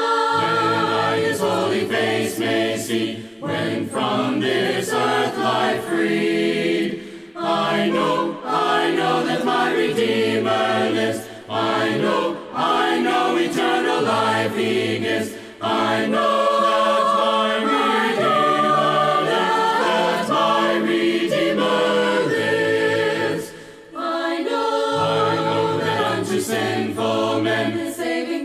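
Choir singing a hymn in parts, unaccompanied, with brief pauses between phrases.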